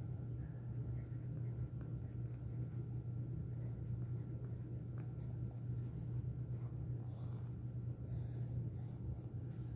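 Pencil scratching on sketchbook paper in short, irregular strokes as letters are written, over a steady low hum.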